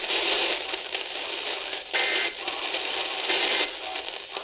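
Radio receiver static: a loud hiss from a radio with no clear signal, dropping out briefly about two seconds in and again near the end.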